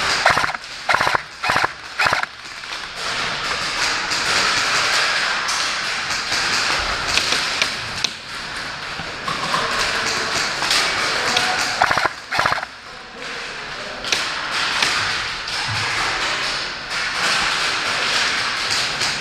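Airsoft gunfire: a quick run of sharp pops in the first couple of seconds, then scattered single pops over a steady rushing noise.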